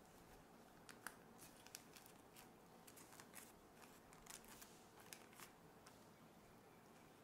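Near silence with faint, scattered crinkles and ticks of parchment paper as the lining of a batter-filled cake tin is pressed and adjusted by hand.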